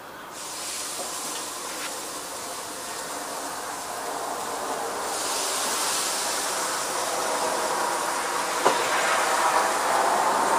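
Beef tomahawk steaks sizzling as they are laid on the hot cast-iron grate of a charcoal kettle grill. The hiss starts as the first steak goes down and grows louder as more meat goes on, with one short tap near the end.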